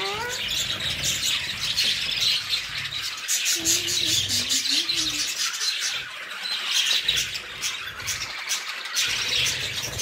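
A flock of budgerigars chattering in an aviary: a dense, continuous warble of many overlapping chirps with sharper squawks among them.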